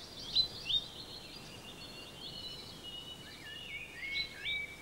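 Several songbirds singing and calling at once: overlapping chirps and warbling phrases, with two louder sharp notes about half a second in.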